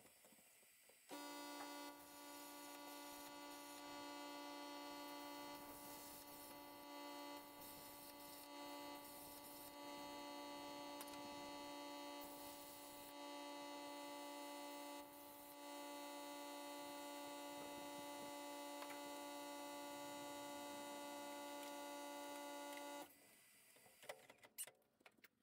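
A 220-volt plasma cutter cutting through 3/8-inch steel with a steady tone for about twenty seconds, then cutting off suddenly.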